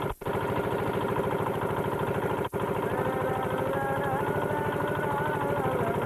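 An engine running steadily at a constant speed, its sound cutting out for an instant twice.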